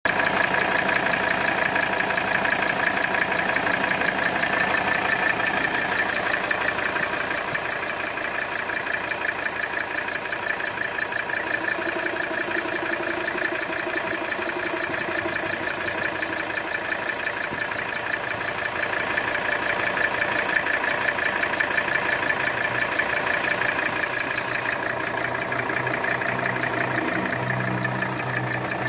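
The five-cylinder diesel engine of a 1983 Mercedes-Benz 300TD idling steadily with a gentle purr.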